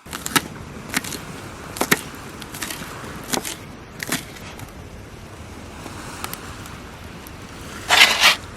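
A run of sharp knocks and clicks, roughly one a second, over a steady rushing noise, with a louder rough rustle or scrape near the end.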